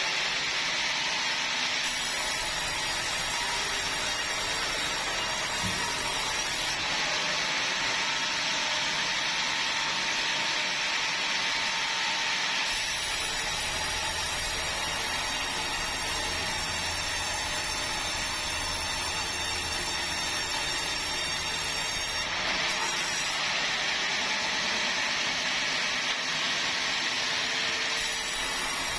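Sawmill saw running and cutting through bengkirai hardwood in a steady, loud whine-and-rasp. Its tone shifts in blocks every few seconds.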